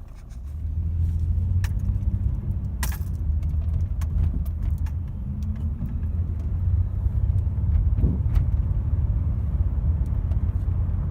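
Low, steady rumble of a car on the move, heard from inside, swelling up in the first second. Scattered small clicks and rattles sound over it.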